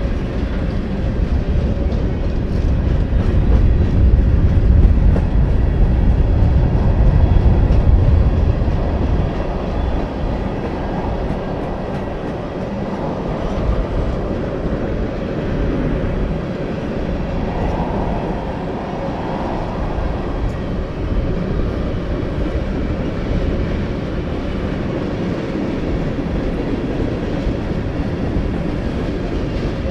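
Union Pacific manifest freight train rolling past, a steady rumble of wheels on rail. It is loudest for the first several seconds, then settles to an even level.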